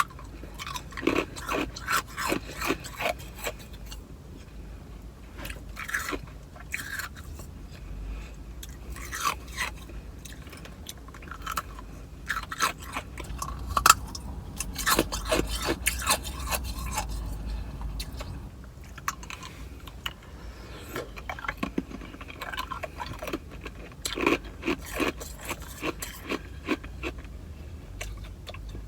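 A person chewing ice in the mouth, bursts of rapid sharp crunches with short pauses between mouthfuls.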